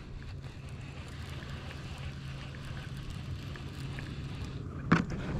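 Baitcasting reel being cranked in a steady retrieve of a crankbait, over a constant low hum and light hiss. There is one short sharp sound near the end.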